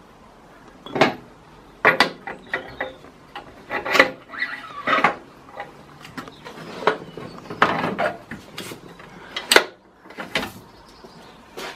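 Irregular metallic clinks and knocks of parts and hand tools as a motorcycle's rear wheel axle and chain adjuster are fitted, a dozen or so separate strikes, some ringing briefly.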